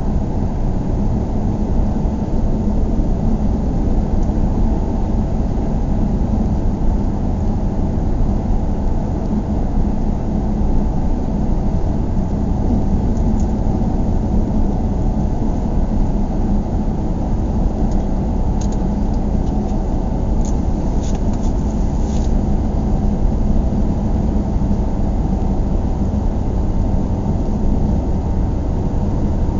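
Steady low rumble like a vehicle running or moving along, unchanging throughout, with a few faint clicks in the middle.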